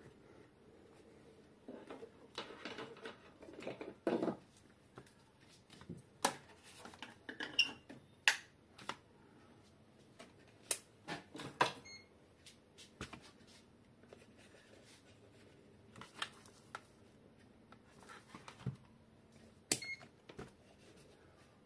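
Irregular sharp clicks, taps and short rustles of hands handling a home-theatre power circuit board, its power cable and a digital multimeter on a newspaper-covered workbench, scattered through with pauses between them.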